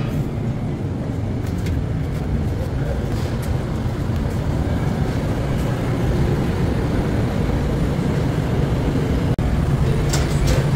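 Steady low rumble of bakery room noise from machinery and ventilation. It briefly cuts out once about nine seconds in, and a few light knocks follow near the end.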